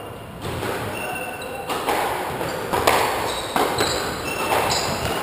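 Squash rally: the ball struck by rackets and smacking off the court walls, sharp echoing hits about once a second, with short high squeaks of sneakers on the wooden floor between them.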